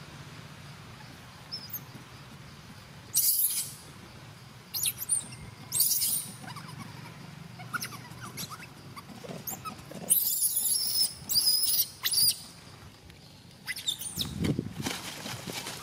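Macaques giving high-pitched, wavering squeals in several short bouts, the longest and loudest about ten to twelve seconds in.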